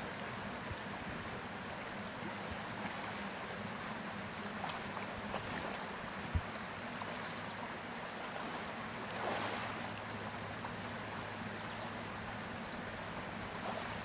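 Steady rush of river water flowing, with a single thump about six seconds in.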